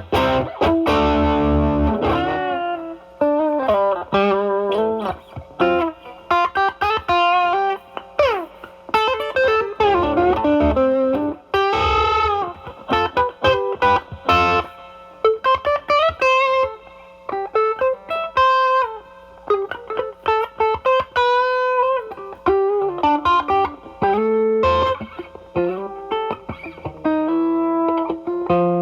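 Electric guitar played through an Ibanez Tube Screamer Mini overdrive pedal into a Marshall Valvestate amp's drive channel, with the drive cleaned up to a light crunch. A few chords at the start give way to single-note bluesy lines with string bends.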